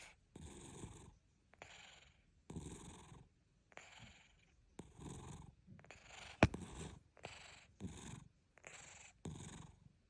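A sleeping cat snoring, about one breath a second. A single sharp click comes just past the middle.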